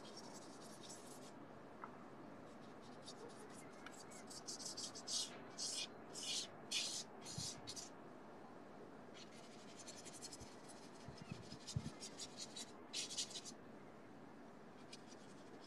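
Paintbrush scrubbing back and forth on a painting laid flat on the floor: runs of quick, short strokes with pauses between, the strongest strokes a little past the middle.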